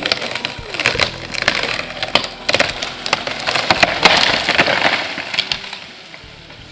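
A hinge-cut hardwood tree cracking and splintering as it tips over, with branches crashing through the canopy, loudest about four seconds in and dying away near the end. The trunk is breaking rather than bending at the hinge, as hardwood sometimes does.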